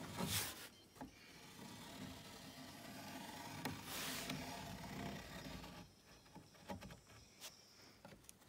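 Compass point and pencil scraping and rubbing along a curved softwood board as a line is scribed parallel to its edge, with two louder scraping rubs, one just after the start and one about four seconds in.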